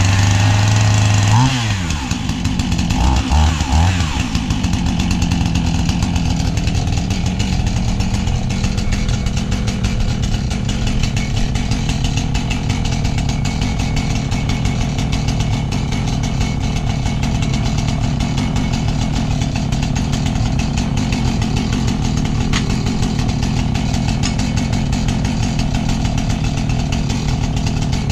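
Two-stroke chainsaw running at high revs. Its pitch dips and shifts in the first few seconds, then it runs steadily under load as it cuts lengthwise through a mesquite log in a homemade milling fixture.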